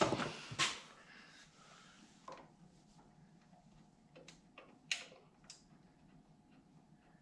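A few faint, scattered clicks and light knocks, about five over several seconds, from hands working on a lamp's cord and fittings overhead. The strongest come just after the start and about five seconds in.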